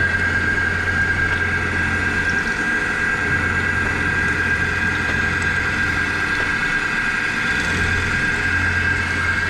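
Milling machine running with a steady high whine over a low hum, its end mill machining a small metal part clamped on a rotary table. The hum drops away briefly twice, about two and a half seconds in and near the end.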